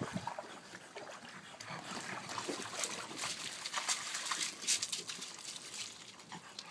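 Small dog splashing through shallow water in an inflatable paddling pool, then tugging and biting at the pool's vinyl rim. The rim tugging makes a run of short, sharp scrapes and crinkles. This chewing is what keeps puncturing the pool.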